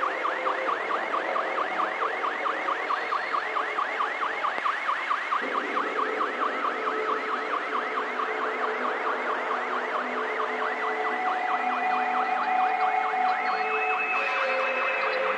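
Electronic siren in a fast yelp, its pitch sweeping up and down about four to five times a second. The yelp fades out in the last few seconds as steady held tones take over.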